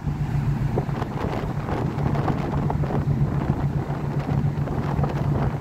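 Wind buffeting the phone's microphone over the steady low drone of a ship's engine.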